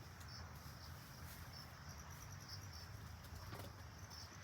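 Faint insects chirping: short, irregular high chirps with a rapid faint ticking above them, over a low steady outdoor rumble. There is a single soft click about three and a half seconds in.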